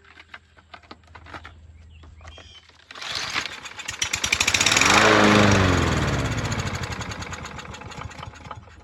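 Craftsman push mower's small engine catching on starting fluid: about three seconds in it fires and runs briefly, speeding up and then slowing and fading out as it dies. It runs on the starting fluid but not on its own fuel, the sign of a fuel-supply problem, which the owner puts down to water separated out of old gas.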